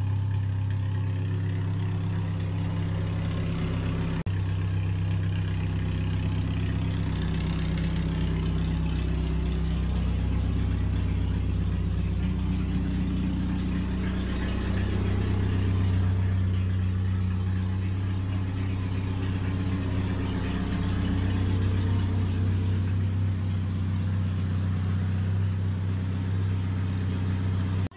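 A car engine idling steadily, its speed holding even throughout.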